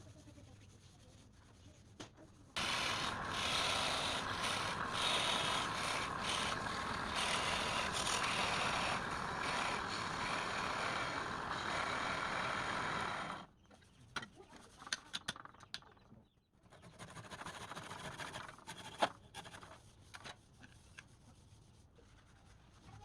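A woodworking power tool runs for about ten seconds with a rough, scraping noise, then cuts off suddenly. Scattered clicks and a shorter, weaker stretch of the same scraping follow.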